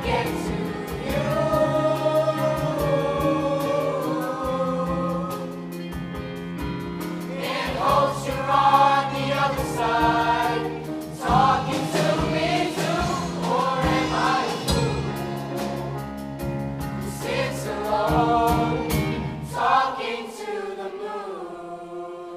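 Middle school show choir singing in parts, backed by a live band with drums and a steady bass line. A couple of seconds before the end the band drops out and the voices hold a last chord alone, sliding down and fading.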